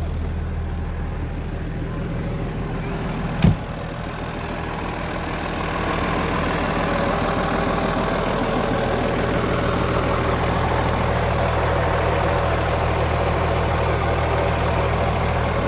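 Kenworth truck's Cummins ISL inline-six diesel idling steadily. It is heard first from inside the cab and gets louder from about six seconds in, up close to the engine. One sharp thump about three and a half seconds in.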